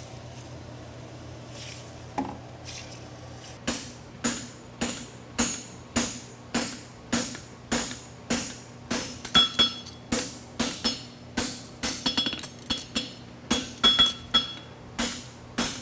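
Blacksmith's hammer striking a glowing steel bar on an anvil, beginning about four seconds in at about two blows a second, each blow leaving a short metallic ring, with a few quick double blows in the second half. The bar's centre third is at forging heat while it is shaped into a horseshoe.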